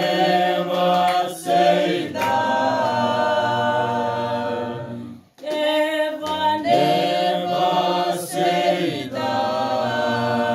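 A small group of voices singing unaccompanied in harmony, holding long notes. The singing stops briefly about halfway through, between phrases, then starts again.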